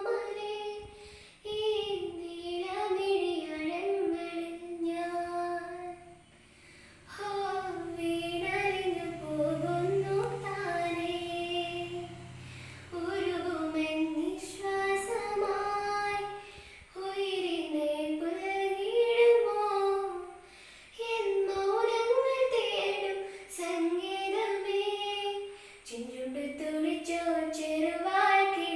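A teenage girl singing a song solo and unaccompanied, in melodic phrases of a few seconds each with short pauses for breath between them.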